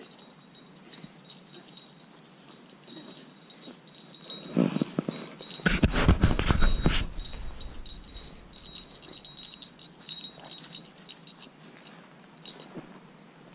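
Camera being picked up and repositioned: rustling, bumping and rumble on the microphone for about three seconds in the middle, with faint intermittent high ringing before and after.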